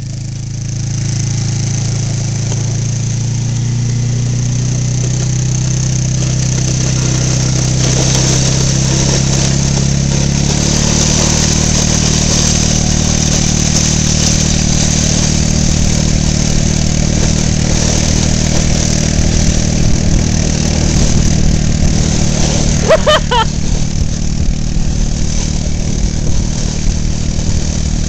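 ATV engine pulling away and running under load as it tows a snow tube, getting louder over the first few seconds, with its note changing about ten seconds in. A steady hiss of wind and snow runs over it.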